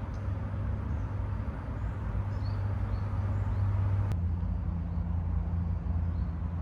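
Low, steady rumble of a motor vehicle's engine from road traffic, its pitch shifting slightly about four seconds in, with a few faint bird chirps above it.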